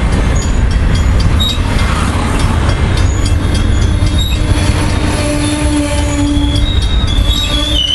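Amtrak Superliner double-deck passenger cars rolling past close by, with a heavy rumble and rapid clicking of the wheels over the rails. From about halfway through, a high wheel-and-brake squeal sets in and holds as the train brakes into the station.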